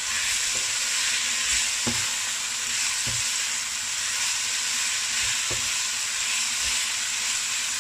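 Lotus root and peppers sizzling as they are stir-fried in a nonstick wok, a steady frying hiss while a spatula stirs and tosses them, with a few knocks of the spatula against the pan.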